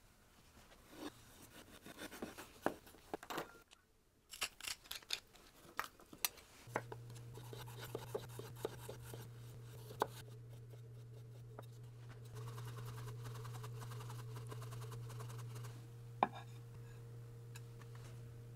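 Jikko VG10 Damascus santoku knife cutting cucumber on a wooden cutting board: a quick run of sharp taps and slicing strokes, with a brief pause. About a third of the way in a steady low hum starts and holds to the end, under a few more knife taps.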